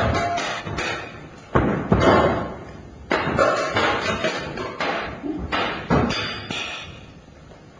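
A run of sharp thuds and knocks at an uneven pace, each ringing out with hall echo, coming in clusters and thinning out near the end.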